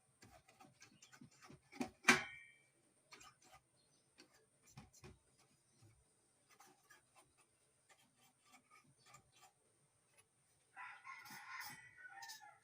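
Scattered small clicks and knocks of hand work on an opened amplifier, with one sharp metallic clink about two seconds in. Near the end a rooster crows once, about a second and a half long.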